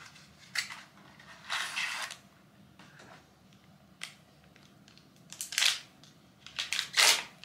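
Paper packaging handled: a cardboard carton opened and a sealed paper sachet of eye patches slid out and torn open, heard as short rustles and rips, the loudest near the end.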